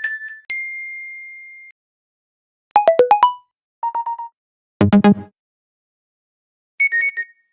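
A run of short iPhone alert tones played one after another with silent gaps: a single ding that fades over about a second, a quick falling run of notes, a short single tone, a brief lower chime, and a high repeated chiming pattern near the end.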